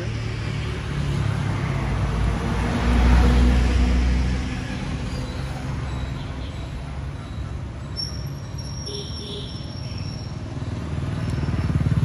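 Road traffic: a vehicle's engine passes close, rising to its loudest about three seconds in and fading away, then another vehicle approaches near the end.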